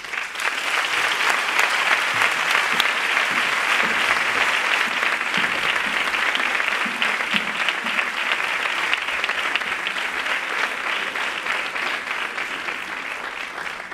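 Audience applauding, starting at once and easing off a little near the end.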